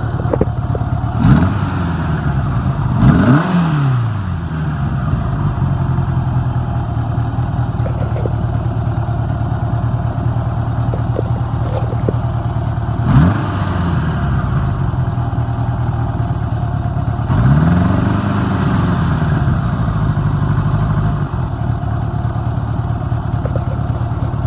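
1984 Honda Gold Wing GL1200's flat-four engine idling after a cold start from a −24° deep freeze. It gets a few quick throttle blips early on and near the middle, and one longer rev held for a few seconds later on.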